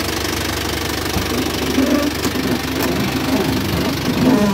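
Isuzu light truck's diesel engine idling steadily.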